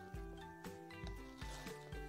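Background music with a steady low beat under a melody of held notes.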